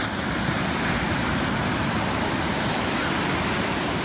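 Ocean waves breaking in shallow surf, a steady rushing noise of white water.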